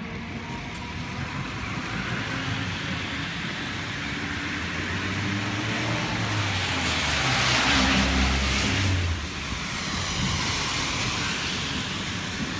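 Cars passing on a rain-wet road: the hiss of tyres on wet asphalt with a low engine hum, swelling to a peak about eight seconds in and dropping off sharply just after, then a second, softer pass.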